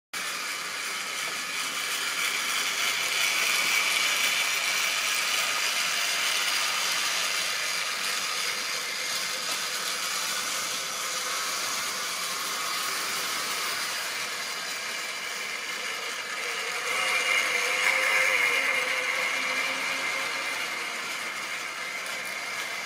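Triang OO-gauge model train running round its track: the small electric motor whirs and the wheels rattle along the rails. It grows louder twice, about three seconds in and again about seventeen seconds in.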